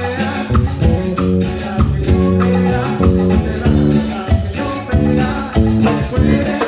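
Latin dance music with a shaker rhythm and a bass line moving in steps.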